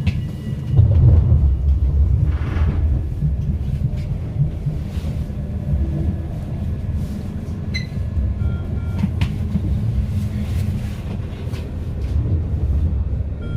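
Tram heard from inside the car: a steady low rumble, with a few sharp clicks and some short high beeps in the second half.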